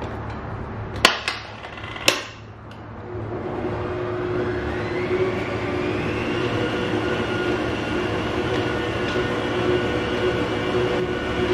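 Two sharp clacks about a second apart as the stand mixer and its whisk are handled, then the mixer motor starts, its whir rising in pitch and settling into a steady run as the balloon whisk beats the Italian meringue at medium-high speed to cool it.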